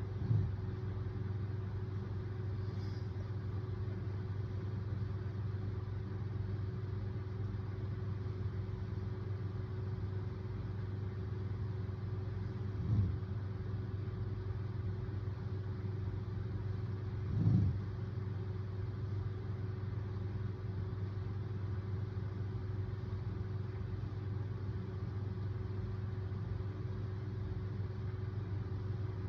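A steady low hum, with three brief, low snores from a sleeping man: one about half a second in, one about 13 seconds in, and the loudest about 17 seconds in.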